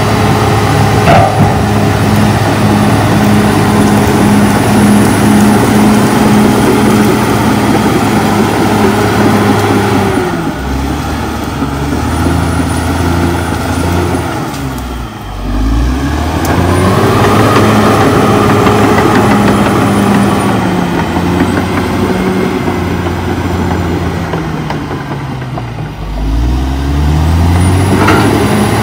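Caterpillar D6R XL bulldozer's diesel engine working hard as the dozer pushes through brush. The revs drop away twice, around the middle and again near the end, and climb back each time.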